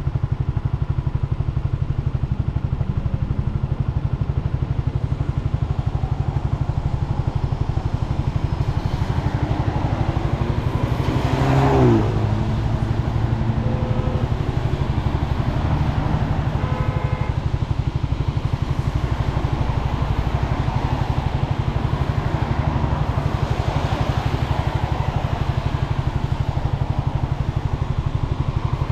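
BMW C400GT scooter's single-cylinder engine idling steadily while stopped, with other traffic around. About twelve seconds in, a passing vehicle sweeps by, its pitch falling.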